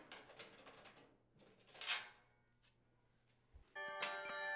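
Faint metallic clicks and scraping of a flathead screwdriver turning the rear screws of a gas oven's bottom panel, with one louder scrape about two seconds in. Near the end a louder, steady chime of several held tones comes in: a warning sound effect.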